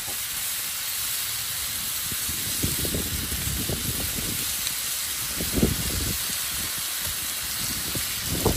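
Bacon sizzling on a propane griddle: a steady hiss, with wind buffeting the microphone in irregular low gusts.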